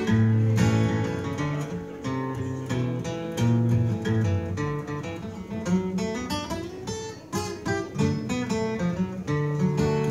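Solo acoustic guitar played without singing: an instrumental break of strummed chords and picked notes over a moving bass line.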